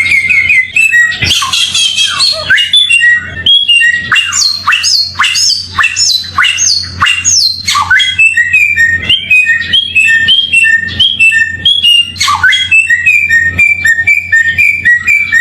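Samyong bird singing without pause: fast strings of short, sharp repeated chirps, with a run of quick rising whistled sweeps in the middle.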